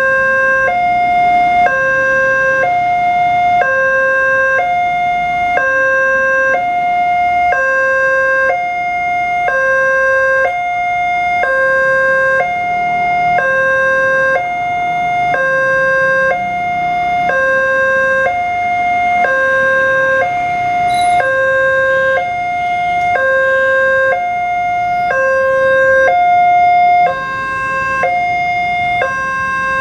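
Electronic level-crossing warning alarm sounding from the loudspeaker on the crossing signal: two tones, a lower and a higher, alternating about once a second without a break. The alarm means the crossing is closed for an approaching train.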